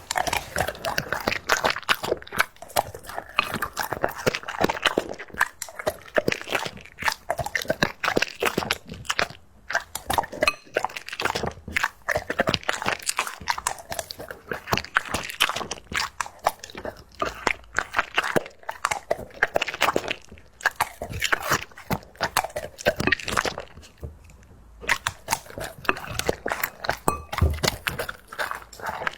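A dog chewing and crunching something hard, a rapid, continuous run of crunches with one short break near the end.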